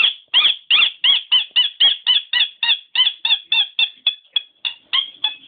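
A squeaky toy squeaked over and over as a dog chomps on it: about twenty short, high squeaks, roughly four a second, at a steady pitch, growing a little weaker near the end.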